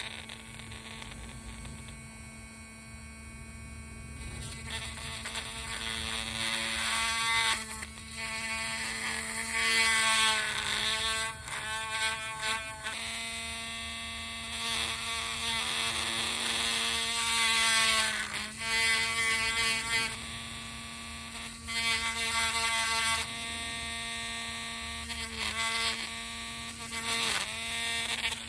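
Small handheld electric drill running steadily while drilling holes into a plastic action-figure hand. Its hum dips in pitch several times as the bit bites into the plastic, with louder bursts of cutting noise in the middle stretch.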